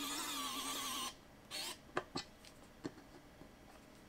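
Cordless electric precision screwdriver running for about the first second, its small motor whining at a slightly wavering pitch, then a brief second run, followed by a few light metallic clicks as screws and parts are handled.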